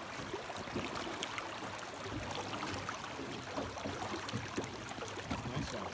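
Running water: a steady babble with many small splashes and trickles.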